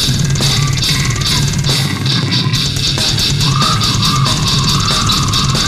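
Heavy metal music: fast drumming with rapid, dense cymbal hits over heavily distorted guitars, and a higher wavering line coming in about halfway through.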